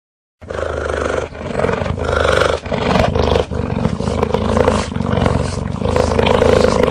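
A cheetah's loud, continuous low vocal rumble, starting about half a second in, with brief dips every second or so.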